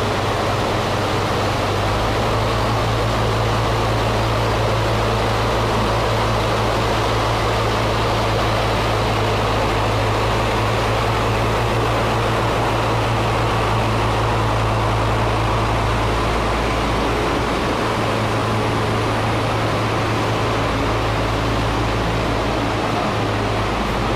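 Engine of a concrete truck running steadily: an even low hum under a wide rushing noise, with no change in pace.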